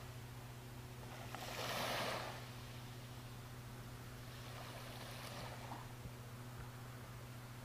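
Small waves washing among floating slush ice at the shoreline, with one louder wash about two seconds in and a softer one later, over a steady low hum.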